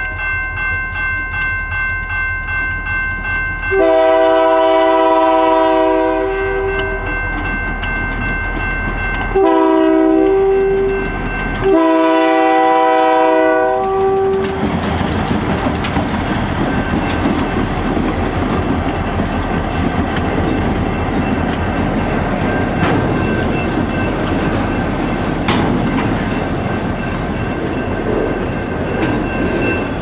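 A freight train passing. A bell rings about twice a second, then the locomotive's chime air horn sounds long, short, long, several notes at once, and the train rolls by with a steady wheel rumble and clickety-clack of the freight cars.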